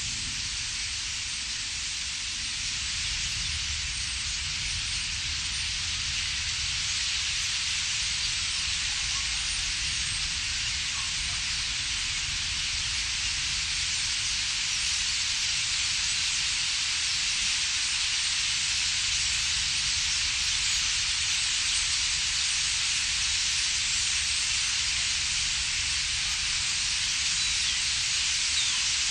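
Massed chatter of a huge flock of common starlings settled in a reed bed, blending into a dense, steady hiss, with a low rumble underneath.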